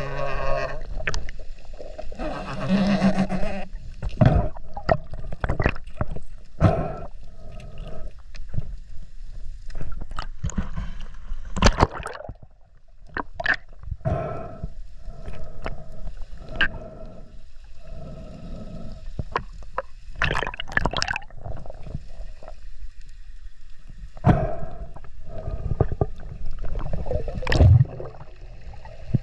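Underwater sound picked up by a speargun-mounted camera: gurgling water noise with irregular clicks, knocks and thumps from handling the gun and line.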